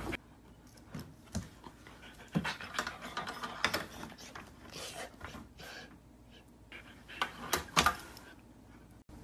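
Labrador panting, with scattered short taps and knocks on a wooden floor.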